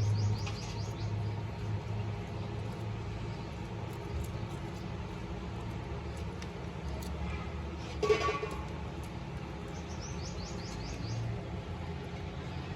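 A small bird chirping in two quick runs of short, high notes, one near the start and one about ten seconds in, over a steady low hum. A single short, sharp sound comes about eight seconds in.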